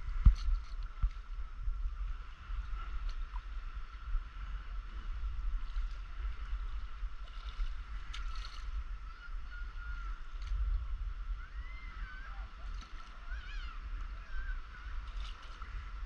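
Stand-up paddleboard paddling on calm water: paddle strokes dipping and water lapping against the board, over a steady low rumble of wind on the microphone, with a few sharp knocks in the first second.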